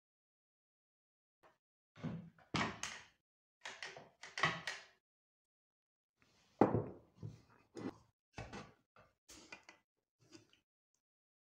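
Irregular knocks and thuds of wooden pieces and a hand plane being handled and set down on a wooden workbench, in several short clusters with quiet gaps between them.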